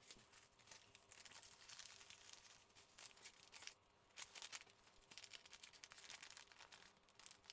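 Thin clear plastic bags crinkling faintly as hands handle and open them, in irregular crackles with a short pause about four seconds in.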